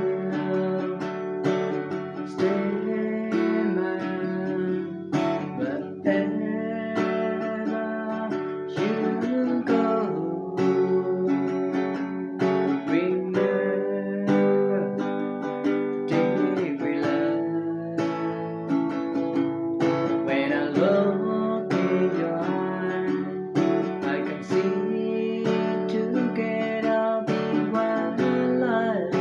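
Music: an acoustic guitar strummed and plucked through chord changes in an instrumental passage of a song.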